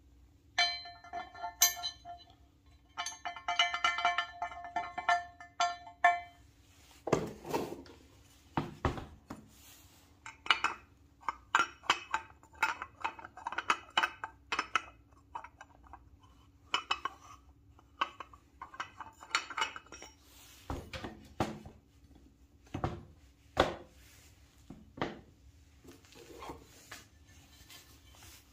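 Metal parts clinking and knocking as a steel crankshaft is handled and set into an aluminium scooter crankcase half and against a steel plate. Two sustained ringing tones sound in the first six seconds, followed by many separate sharp clicks and knocks.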